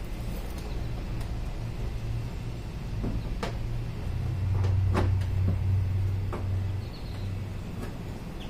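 A few sharp clicks and knocks of a plastic turn signal lamp and its clips being worked loose from a car's body, over a steady low hum that swells for a few seconds in the middle.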